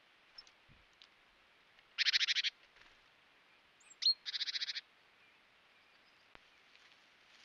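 Bird sounds: two short, fast rattles about two seconds apart, each lasting about half a second, with a brief high chirp just before the second.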